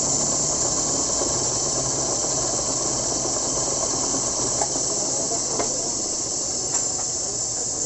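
Workshop machine running with a steady high hiss over a low hum while a motorcycle wheel hub is centred on it, with three faint ticks in the second half.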